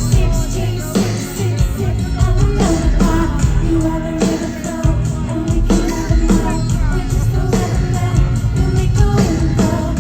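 Live band music with a woman singing over guitar and drums, loud and continuous.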